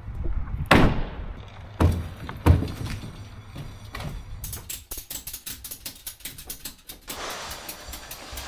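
Three heavy thumps in the first few seconds, then a quick run of mechanical clicks, then a steady hiss with a few more clicks near the end.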